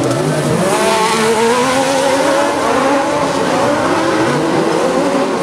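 A pack of Buggy 1600 autocross buggies racing through a dirt corner, several engines revving together, their pitches dipping and rising as they brake and accelerate.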